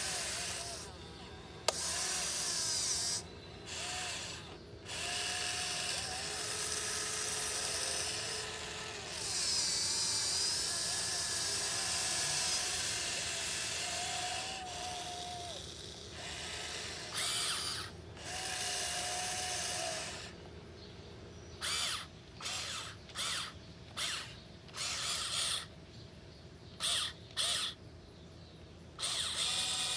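Radio-controlled 1580 excavator's small electric motors and gearboxes whining as it digs, the pitch shifting as the controls are worked, in stretches of a few seconds. In the last third it runs in short on-off bursts.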